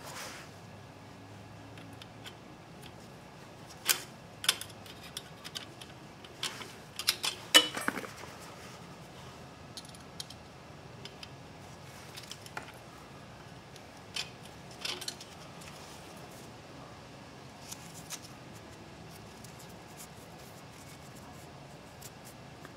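Scattered light metallic clicks and scrapes of a pick tool and clutch plates as the steel plates and friction fibers are pried out of a Harley Sportster clutch basket, with the loudest cluster about seven to eight seconds in.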